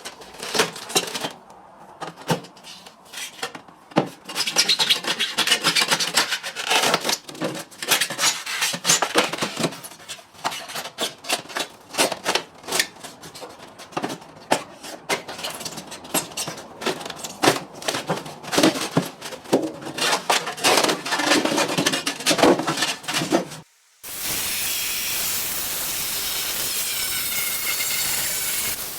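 Foam insulation being scraped and torn off an old water heater tank, an irregular run of rubbing and scraping strokes. About 24 seconds in, after a brief break, a steady loud hissing noise from a cutting tool takes over.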